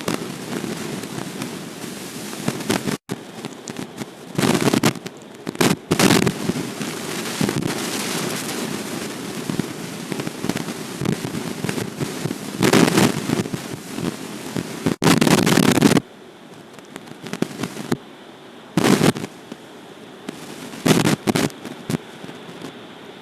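Storm wind gusting and buffeting an outdoor nest-camera microphone, a rough crackling rumble that comes in irregular blasts. It eases about two-thirds of the way through, leaving a lighter hiss with a couple of short gusts near the end.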